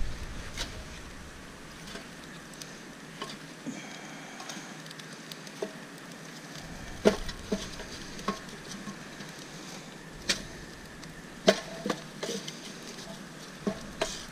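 Small wood fire crackling inside a wood-burning camp stove: sharp pops and clicks at irregular intervals over a faint hiss.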